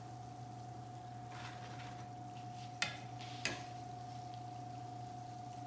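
Oil in an electric skillet sizzling faintly as pieces of fry bread are turned and lifted with metal tongs, with two sharp clicks of the tongs a little over half a second apart about three seconds in. A steady faint hum runs underneath.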